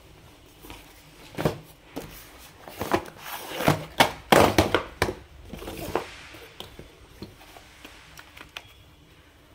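Small cardboard boxes of miniature circuit breakers being slid out of their carton and set down on a table: a run of knocks, taps and cardboard rustling, busiest a few seconds in, then a few lighter taps.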